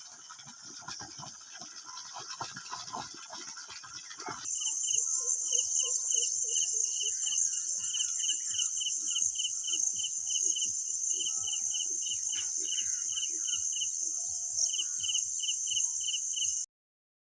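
Insects, likely crickets, chirring: a steady high buzz with a rhythmic chirp repeating a few times a second. It takes over from a rougher noisy mix about four seconds in and cuts off suddenly near the end.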